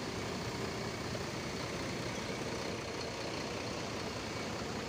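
Large bus diesel engine idling steadily.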